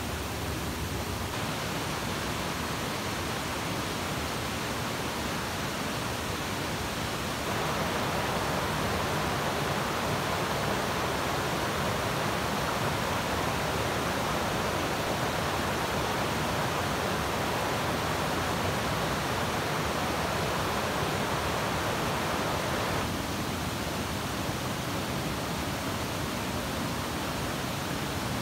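Stream water flowing over rocks: a steady rush that gets louder about a quarter of the way in and drops back near the end.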